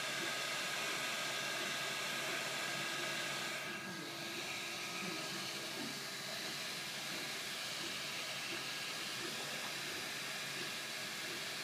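MakerBot Replicator 3D printer running a print: a steady whir and hiss from its cooling fans, with short whines that rise and fall as the stepper motors move the print head.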